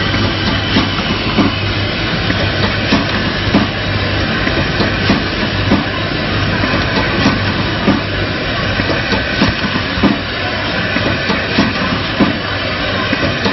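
Rotary premade-pouch packaging machine running: a steady hum under a quick, uneven clatter of knocks, about two a second, as its pouch grippers and stations cycle.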